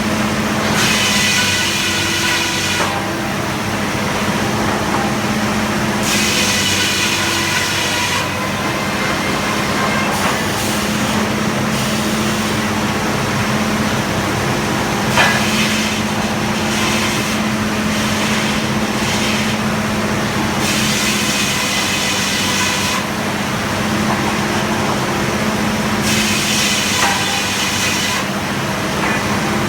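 Frick circular sawmill running under power, its drive making a steady drone while the saw cuts wood again and again. Each cut adds a high, ringing whine lasting two or three seconds, about every five seconds.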